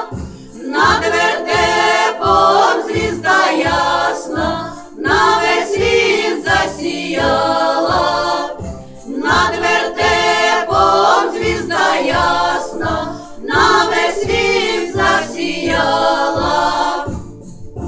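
A choir of voices singing a Christmas carol in phrases over an accompaniment with a steady beat; the singing stops shortly before the end, leaving the accompaniment.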